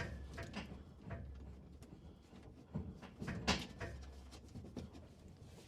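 Faint, scattered metallic clicks and knocks of bolts being handled and pushed through the cab's mounting holes, a few louder knocks in the middle, over a low steady hum.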